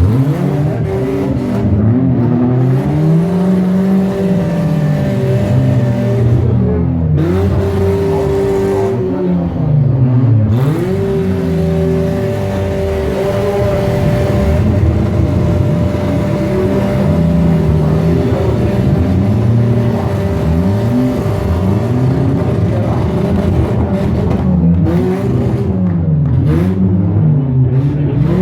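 Several demolition derby cars' engines revving up and down at once, their pitches rising and falling over one another, with one engine holding a steady note from about ten seconds in.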